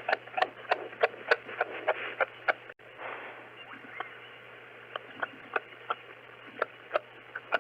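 Kangaroo making a series of short, sharp clicks, several a second, over a steady hiss.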